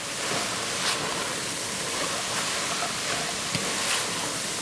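Corn kernels, vegetables and freshly added flour sizzling steadily in a pot over high heat, with a few light scrapes of a wooden spoon stirring the mixture.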